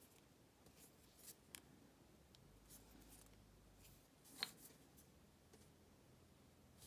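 Near silence with a few faint, light clicks and taps from small hand work with a wooden dotting tool and paint pots. The clearest single tick comes about four and a half seconds in.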